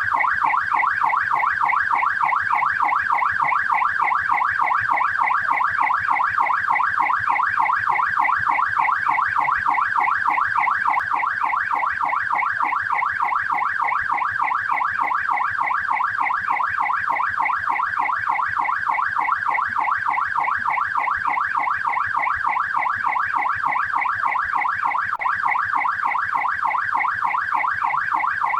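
Australian police car's yelp siren: a fast, steady up-and-down pitch sweep, about three to four sweeps a second.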